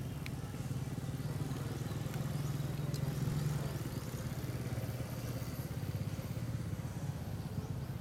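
An engine running steadily with a low, even hum, a little louder around the middle.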